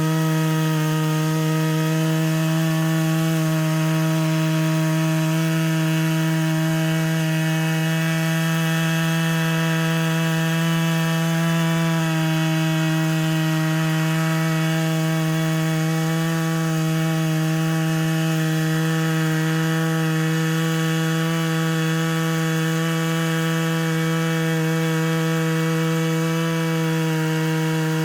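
Stihl MS 660 two-stroke chainsaw running at steady high revs under load, its 36-inch bar and rip chain cutting a lengthwise slab through a Western red cedar log in an Alaskan chainsaw mill. The engine note holds even, with no let-up.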